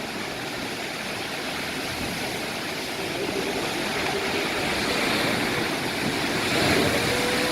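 Ocean surf: big waves breaking and washing in, a steady rushing that swells louder about halfway through.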